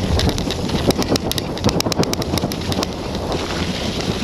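Wind buffeting the microphone on a bicycle going fast over rough ground, with a dense run of irregular sharp clicks and rattles through the first three seconds.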